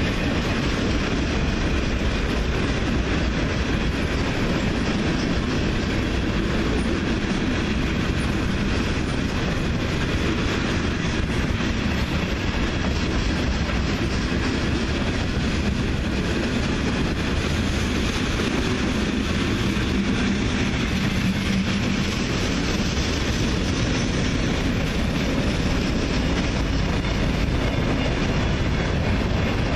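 Freight train's cars rolling past at steady speed: a continuous, even rumble of steel wheels on the rails.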